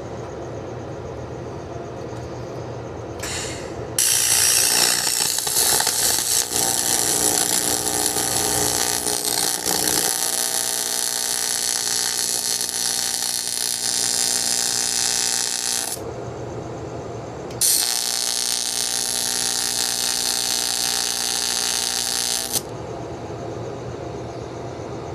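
Electric arc welding: a brief arc strike, then a long steady hiss of the arc for about twelve seconds, a short pause, and a second run of about five seconds. A lower steady hum fills the gaps between runs.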